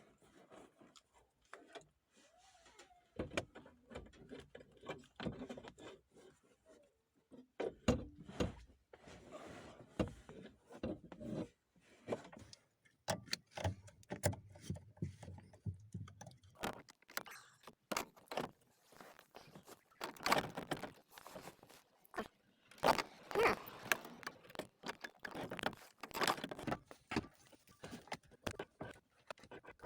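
Irregular clicks, knocks and small metallic clinks of hand tools and parts being handled while reassembling a Kia's electric power-steering column.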